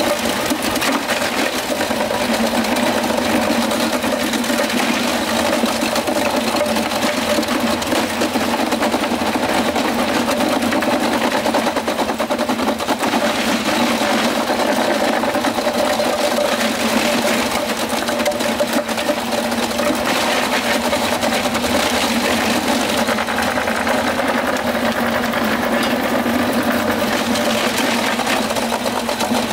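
A small engine or motor running steadily.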